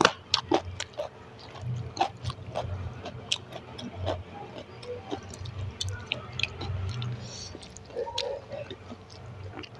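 Close-miked eating: chewing of rice and singhi fish curry with potatoes, with many small irregular wet clicks and mouth smacks.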